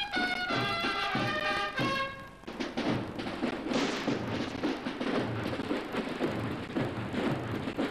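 Cornets of a cornet-and-drum band playing a melody over drums, breaking off about two and a half seconds in. After that, drums go on alone as a dense rattle with a regular heavy beat.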